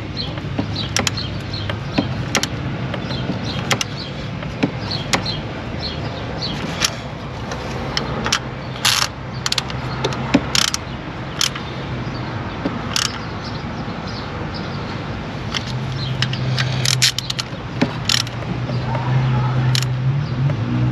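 Scattered sharp metallic clicks and clinks of hand tools on the thermostat housing bolts as they are tightened, about one every second or two, over a steady low hum that grows louder near the end.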